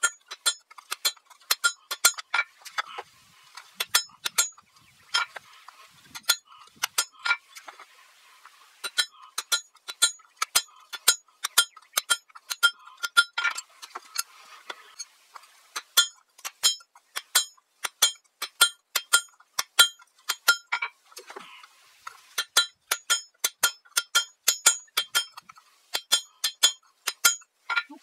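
Blacksmith's hammer striking hot steel on an anvil while forging an axe head, each blow ringing, in runs of about three strikes a second with short pauses between.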